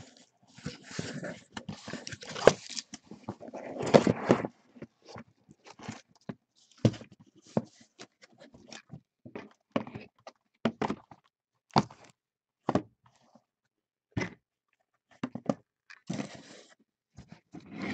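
Cardboard scraping and rustling as a sealed trading-card case is opened and shrink-wrapped hobby boxes are slid out. After that comes a run of a dozen or so short knocks as the boxes are set down and stacked one on another.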